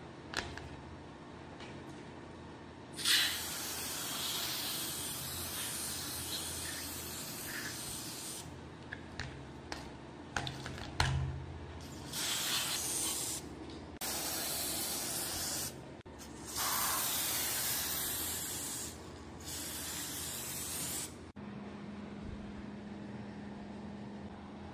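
Spray can with a red straw nozzle hissing in five bursts, the first about five seconds long and the rest shorter, as it is sprayed over a rusty revolver. A few light clicks and a knock come in the pause between the first and second bursts.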